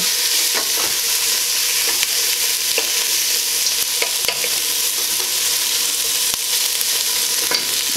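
Chicken feet sizzling as they brown in oil in a stainless steel pot, stirred with a wooden spoon. A steady frying hiss with light knocks of the spoon against the pot now and then.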